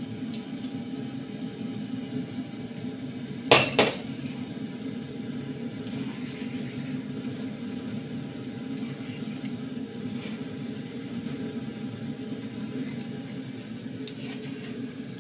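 Metal spoon and wire mesh strainer clinking against a pot while chile sauce is strained into a pressure cooker, with two sharp clinks about three and a half seconds in and a few faint taps near the end, over a steady low hum.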